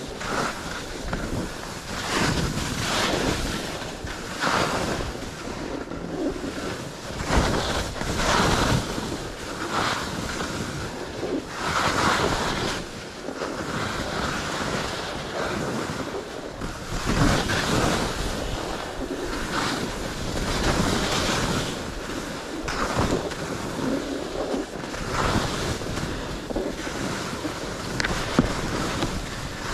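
Skis scraping and hissing over packed snow and moguls in quick repeated turns, each turn swelling and fading every second or so, with wind rushing over the microphone.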